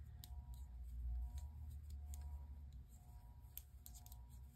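Knitting needles clicking faintly and irregularly as stitches are worked, over a steady low hum.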